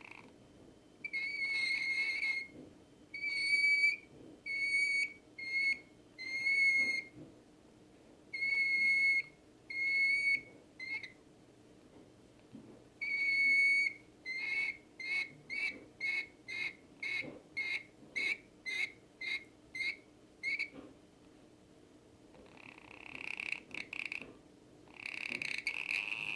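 A run of steady whistled notes, each held for half a second to a second, then a quicker series of short whistles at about two a second. Near the end the rainbow lorikeet's hissing purr starts up again.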